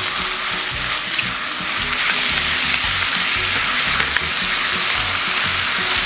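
Squid, sliced onion and carrot sizzling in hot oil in a wok as they are stir-fried with a spatula, a steady frying hiss.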